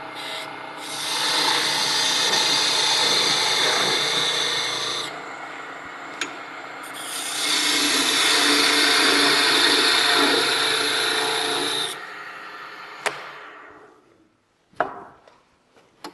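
Wood lathe running while a homemade parting tool, made from a metal-cutting bandsaw blade, cuts into a spinning maple blank in two long cuts of about four and five seconds. The lathe stops about twelve seconds in and winds down, followed by a click and a few light knocks.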